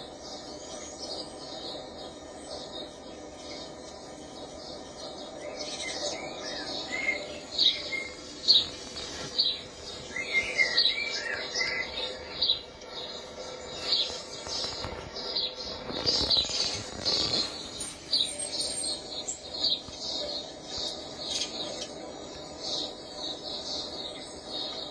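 High-pitched chirping and twittering played through a television's speaker, in many short calls that come thicker from about six seconds in, over a faint steady hum.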